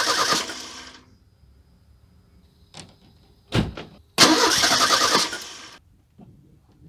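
The 1985 Merkur XR4Ti's 2.3-litre turbo four-cylinder cranking on the starter and not catching, in two tries: one already under way that fades out about a second in, then, after a click and a thump, a second crank of about a second and a half. This is a no-start condition that the owner first took for an ignition fault; its actual cause was bad gas.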